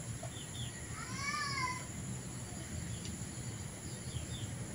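An animal's single drawn-out call, rising then falling in pitch, about a second in. Faint short bird chirps come before and after it, over a steady high outdoor hiss.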